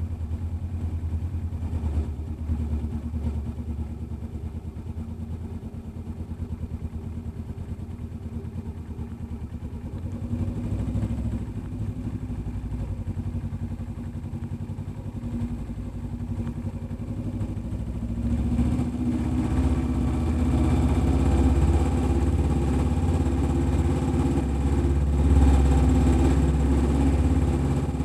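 Kawasaki Ninja 300's parallel-twin engine running at low revs while the motorcycle moves slowly. It gets louder about two-thirds of the way through.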